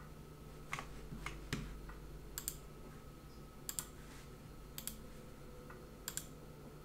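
Computer mouse clicking as a chart platform's menus are worked: three single clicks in the first second and a half, then four quick double clicks about a second apart, over a faint steady hum.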